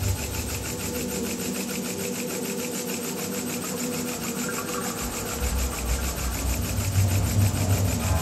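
Small model steam engine with two single-acting cylinders running at full speed, a rapid, even chuffing clatter of many beats a second from the cylinders and the Lego gearing as it hoists the lift cage. A low rumble joins about five seconds in.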